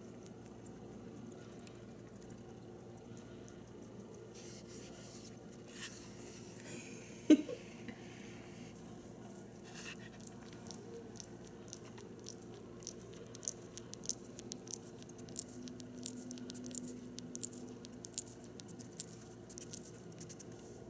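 A pet hedgehog's claws ticking and scratching on a hardwood floor, a run of quick light clicks through the second half. One sharp knock sounds about seven seconds in, over a faint steady hum.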